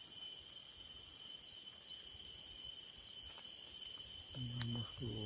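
Insects keep up a steady high-pitched drone, with a single short high chirp about four seconds in. A brief low human voice sounds near the end.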